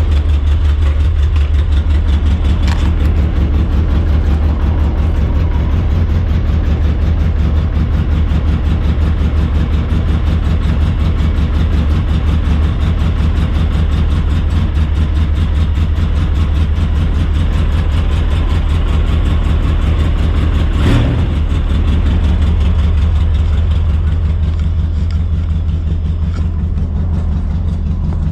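An engine running steadily at an even, low speed, with a sharp knock about three seconds in and another about 21 seconds in.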